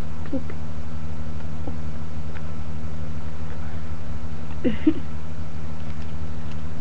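Steady low electrical hum in the recording, unchanging throughout, with two brief faint voice-like sounds about half a second in and just before five seconds.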